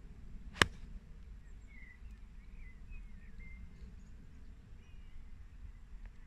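A pitching wedge strikes a golf ball off a tee mat: one sharp click about half a second in. Faint bird chirps follow.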